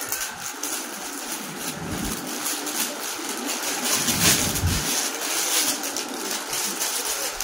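Plastic packaging and a plastic shopping bag crinkling and rustling as new clothes are pulled out of them by hand, loudest a little past the middle.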